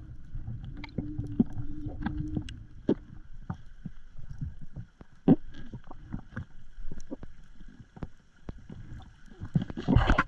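Underwater sound picked up by a diver's camera: scattered sharp clicks and knocks over a low rumble, with a faint steady whine. A denser, louder cluster of knocks and rushing noise comes near the end.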